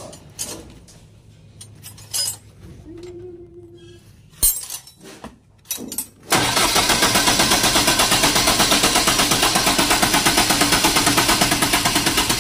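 A few clicks and knocks of handling, then a diesel generator's engine comes on abruptly about six seconds in and runs steadily with a fast, even pulse.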